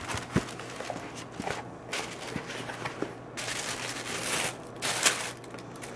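Tissue paper rustling and crinkling in irregular bursts as it is unfolded inside an opened cardboard box, with one light knock from the box shortly after the start.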